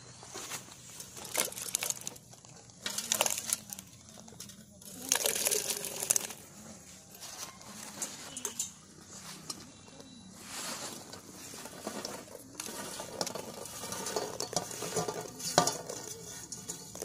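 Fried gulab jamun balls being tipped from steel vessels into a large pot of sugar syrup, with scattered knocks and clinks of the metal containers and the balls dropping into the syrup.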